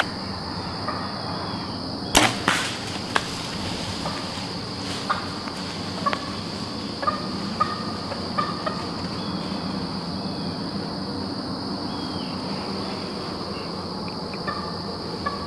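Steady high-pitched insect chorus of crickets in the woods, with scattered dry clicks and crunches and one louder sharp knock about two seconds in.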